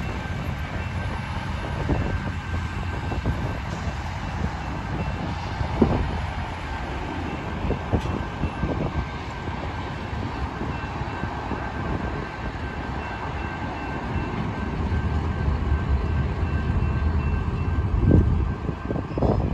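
Freight cars rolling through a road grade crossing with a low rumble and wheel clacks over the rails, while the crossing bell rings steadily. The rumble and clacks die away as the train clears, and there is a louder surge of sound near the end.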